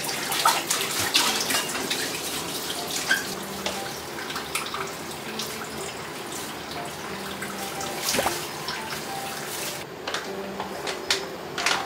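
Kitchen tap running into a sink, with light clinks and knocks. The water goes off near the end.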